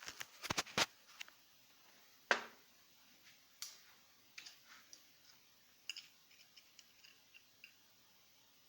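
Sharp clicks and knocks of small hard objects being handled: a quick run of clicks in the first second, a louder knock a little after two seconds, then scattered light ticks and taps.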